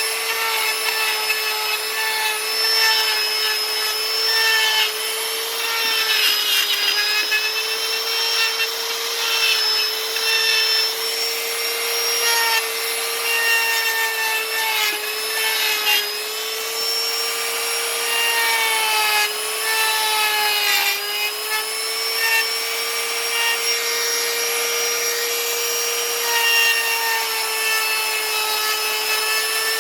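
Handheld power carving tool grinding into wood: a steady motor whine with the rasp of the cutter on the wood, its pitch sagging briefly several times as the bit bites under load.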